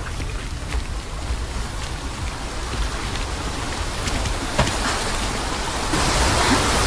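Steady rain-like hiss with scattered light ticks and a low rumble underneath, turning louder and brighter about six seconds in: ambient rain and water noise from a video game soundtrack.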